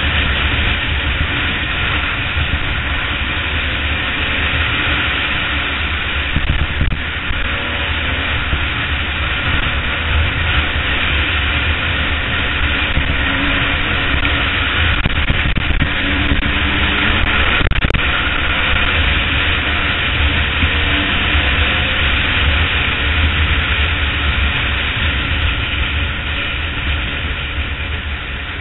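Honda CR250 single-cylinder two-stroke motocross bike running steadily at cruising speed on a dirt road, heard through heavy wind buffeting on the bike-mounted camera's microphone.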